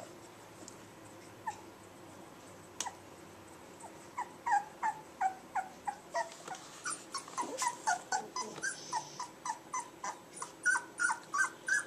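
Four-week-old Labrador puppy whimpering: short whines falling in pitch, a few at first, then about two a second from about seven seconds in.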